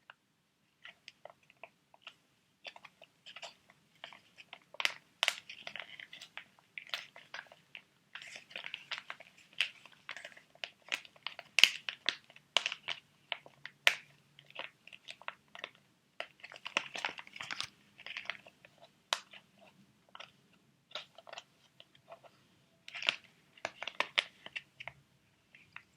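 Plastic sheet-mask packets being handled and crinkled, with irregular crackles and sharp clicks and a few short pauses.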